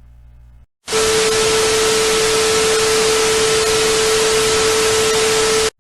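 Loud burst of static hiss with a steady beep-like tone through it. It cuts in suddenly just after a brief dropout and cuts off just as suddenly: a 'crash' glitch effect.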